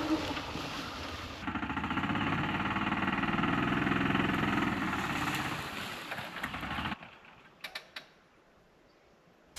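Gas golf cart engine running steadily, then cutting off about seven seconds in. A few light clicks follow.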